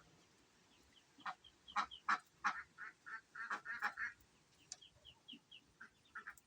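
A bird calling in a quick run of loud, harsh calls for about three seconds, then a few softer, shorter calls.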